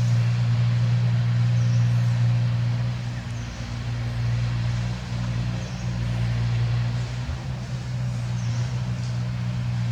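Steady low drone of a running motor, with faint high chirps now and then.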